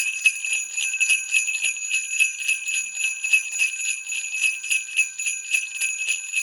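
Handheld sleigh bells on a handle, shaken in a quick, even rhythm of about four to five shakes a second, the bells jingling and ringing on between shakes.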